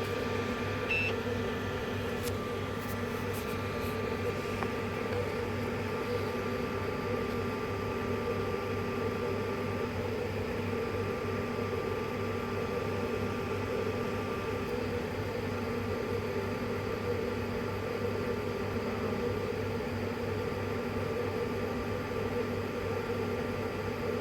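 3D printer running while it prints scaffolds from solution: a steady mechanical hum with a higher motor tone that starts and stops several times, and a few short clicks or beeps in the first few seconds.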